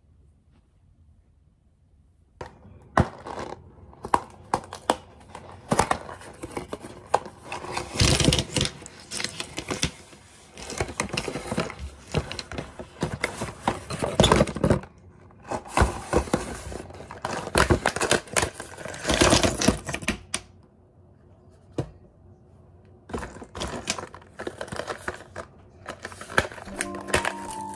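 Aluminium coffee capsules clattering and clicking against each other and a metal countertop as they are tipped out of their cardboard box and handled, in quick irregular bursts with a short lull partway through. The first couple of seconds are near silent.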